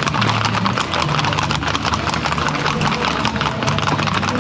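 Horses' hooves clattering in a rapid, continuous patter, over a low steady drone.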